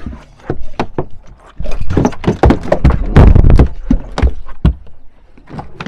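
A small hooked shark thrashing against the fiberglass side and deck of a boat, a rapid, uneven run of knocks and slaps that is loudest in the middle.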